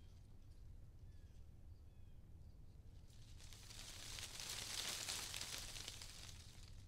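Faint rustling of tree leaves that swells to a peak about five seconds in and then fades, over a low steady hum. A few faint high chirps come in the first two seconds.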